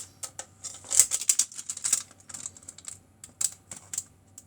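Light, irregular clicks and taps of a small plastic eraser puzzle and its packaging being handled, bunched most thickly in the first half.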